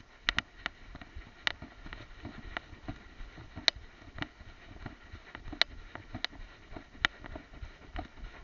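Irregular sharp clicks and knocks, about one or two a second, over a low rustle: a small camera strapped to a dog's head jostling on its mount as the dog moves.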